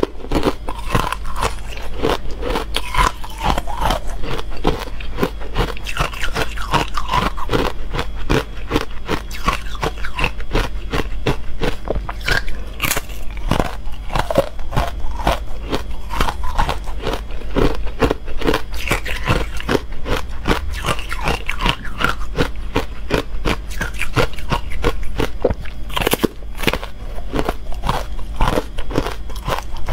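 Hard ice sticks dusted with matcha powder being bitten and chewed up close: a dense, continuous run of sharp cracks and crunches.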